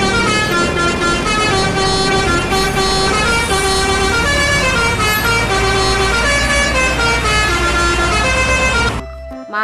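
Isuzu GVR tractor unit's musical air horn playing a tune of changing notes over the diesel engine's low rumble, cutting off near the end.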